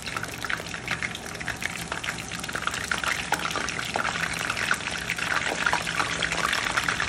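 Wontons frying in hot oil in a pan: a dense, steady sizzle with many small crackling pops, growing a little louder toward the end.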